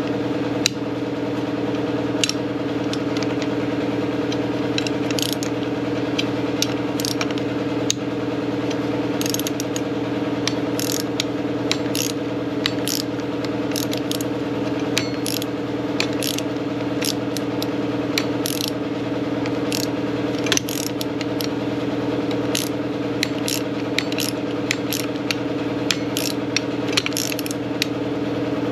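Hand ratchet clicking in irregular strokes as a coil-spring compressor is wound down on a front strut spring, taking the tension off the strut. A steady low hum runs underneath.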